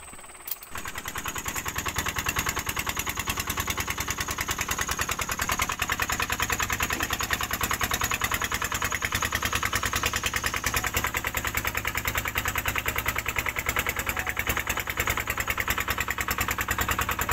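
Small fishing boat's engine running with an even, rapid putter, coming in suddenly about half a second in.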